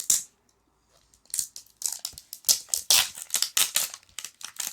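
Plastic toy wrapping being torn and crinkled by hand: a quick rip at the start, then from about a second in a busy run of irregular rips and rustles.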